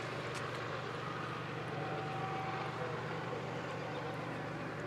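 Tail end of a long intermodal freight train rolling away round a curve, its rear remote locomotive, a CP ES44AC, passing last: a steady noise of wheels on rail, with a faint thin whine joining about two seconds in.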